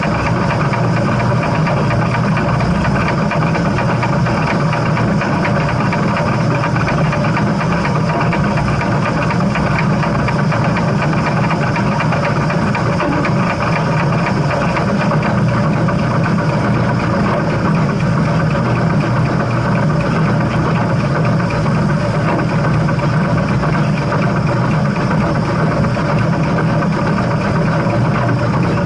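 Steam train running, a steady loud rumble that holds evenly throughout.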